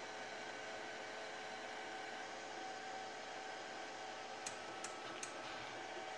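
Firepower FP-200 MIG welder switched on and idling, its cooling fan running as a steady airy noise with a faint hum. Three light clicks come in quick succession about four and a half seconds in.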